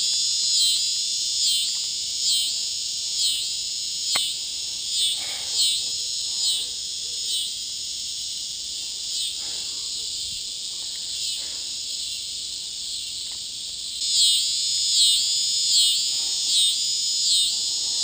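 Cicada calling very loudly: a shrill, high-pitched buzz that swells and dips in a regular pulse a little faster than once a second. It eases off somewhat midway, then comes back strong about fourteen seconds in.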